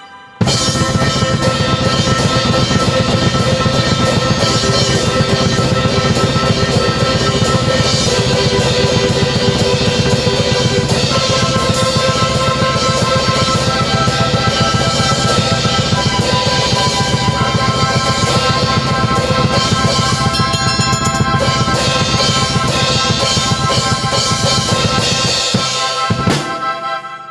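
Drum kit played fast and densely, bass drum and snare driving, together with a keyboard holding sustained chords that change every few seconds. The music starts just after a short break and stops about a second before the end, leaving the keyboard notes to ring out.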